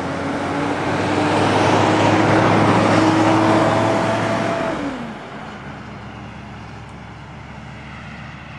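A road vehicle driving past. It grows louder to a peak about two to three seconds in, then its engine note drops in pitch as it goes by and the sound fades away about five seconds in.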